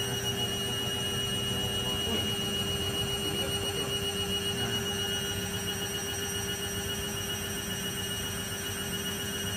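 Servis Slimline 308S washing machine running at a steady speed, with an even motor whine holding one low and one high pitch over a low drum rumble.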